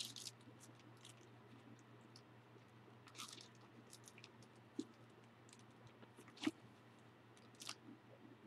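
Faint rustles and soft clicks of thin Bible paper as pages are turned and handled, with one sharper tick about two-thirds of the way through.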